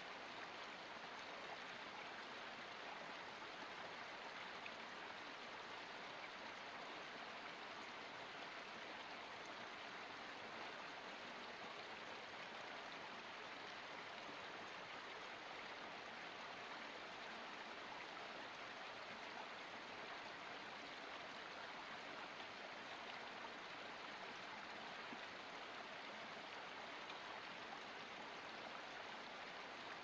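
Small forest stream splashing down over mossy rocks in a little cascade, a steady, even rush of water.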